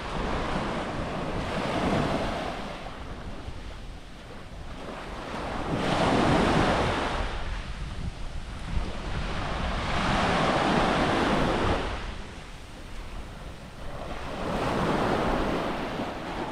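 Small waves washing up on a sandy beach, each swelling and fading, about every four seconds, with wind rumbling on the microphone underneath.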